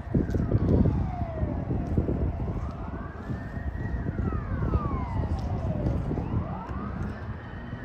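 Emergency vehicle siren wailing, its pitch sweeping slowly up and down about every four seconds, over a low rumble.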